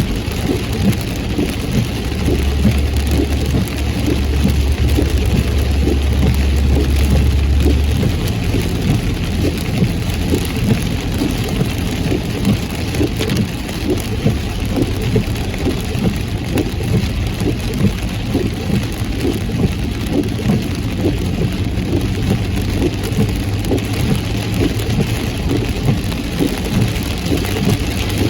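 Heavy rain drumming on a car as it drives, with the car's engine and tyres running underneath. A deep, steady low rumble comes in a couple of seconds in and lasts about five seconds.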